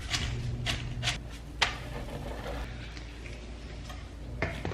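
Kitchen clatter while making pancakes: a few sharp clicks and knocks of utensils and dishes, four in all, over a low steady hum.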